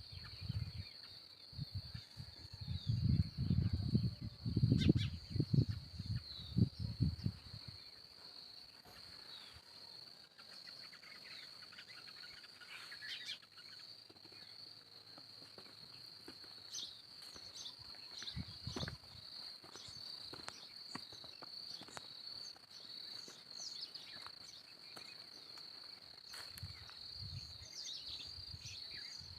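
Early-morning birds chirping in short, scattered calls over the steady high-pitched drone of crickets. Low thumps and rumbles fill the first several seconds, then die away.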